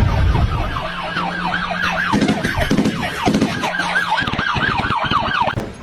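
A siren sounding in a rapid yelp, its pitch sweeping up and down several times a second over a low steady hum, then cutting off just before the end.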